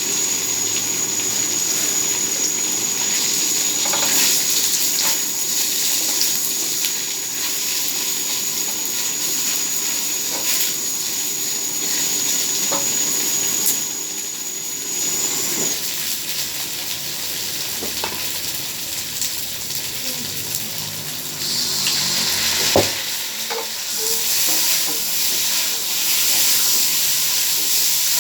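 Tofu skin sizzling as it fries in hot oil, a steady crackling hiss with scattered sharp clicks of utensils. A thin high whine runs alongside and stops about halfway through.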